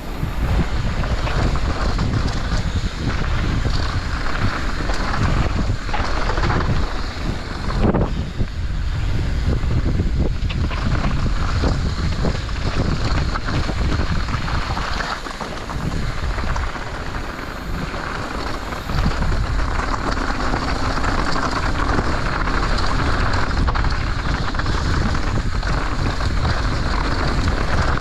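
Wind buffeting an action camera's microphone as a mountain bike rides fast down a dirt trail, with tyre noise and frequent knocks and rattles from the bike.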